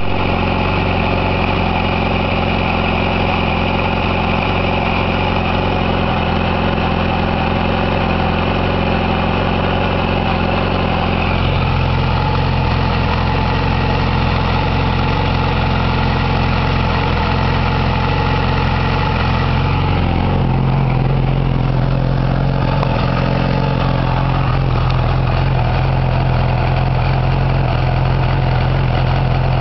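Engine idling steadily, presented as its normal, fault-free running sound. Its low hum shifts slightly in pitch about a third of the way in and again about two thirds in.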